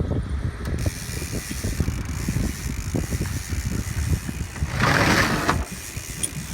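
Fishing reel ratcheting and clicking as a hooked salmon is played, with a brief loud rush of hiss about five seconds in.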